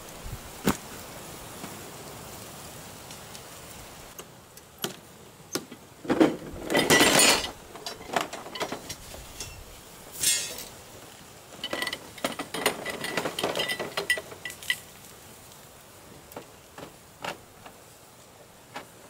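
Hard objects being handled: scattered clicks and knocks, then bursts of clattering with a brief metallic ring, loudest about six to seven seconds in and again from about twelve to fifteen seconds in, over a steady background hiss.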